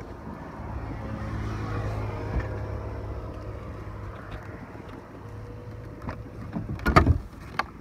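Dodge Viper's 8.0-litre V10 idling steadily with the hood open, a low even hum that is louder in the first few seconds. A few sharp knocks come near the end.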